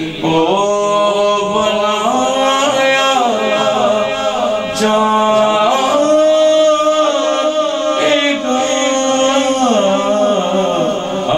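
A man's voice singing an Urdu devotional kalam (naat) in long held notes that bend and slide from pitch to pitch.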